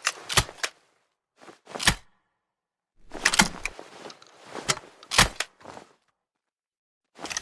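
Double-barrel shotgun being handled before firing: a series of sharp clicks and clacks in short groups, typical of the action being broken open, shells loaded and the action snapped shut.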